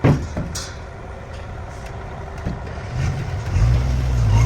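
Bulldozer diesel engine working, with a sharp clank right at the start, then the engine note building about three and a half seconds in to a heavy, steady low drone as it takes load.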